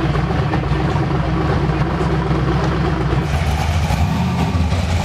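A car engine idling with an uneven, pulsing beat that shifts slightly about three seconds in.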